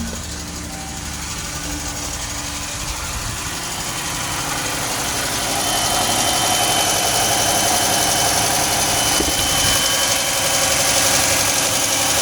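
Car engine idling, with a ticking and a thin, steady high-pitched alternator whistle that comes in and grows louder about halfway through; the whistle is the sign of a bad alternator.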